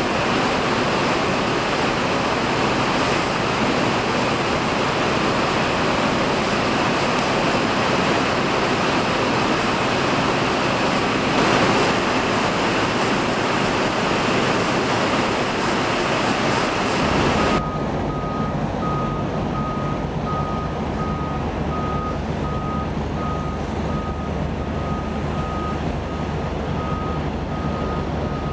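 Steady rushing wind noise on the microphone for about the first seventeen seconds. It then cuts abruptly to a low engine hum with a vehicle's reversing alarm beeping evenly, about two beeps a second.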